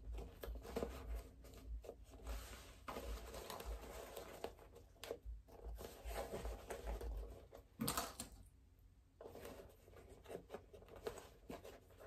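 Faint handling noise of shiny iridescent fabric being worked by hand and fastened with plastic sewing clips: soft rustling and small clicks, with occasional low bumps. It goes briefly quiet about eight seconds in.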